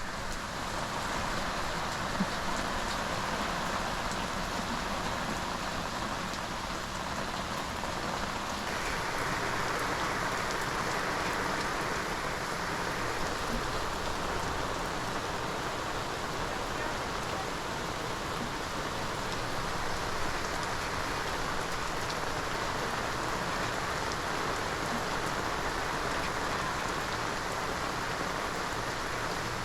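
Steady rain falling, a little heavier from about nine seconds in.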